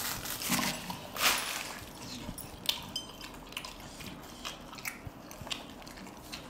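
Close-up eating sounds: chewing with many small wet clicks and smacks of the mouth, and a short breathy puff a little over a second in.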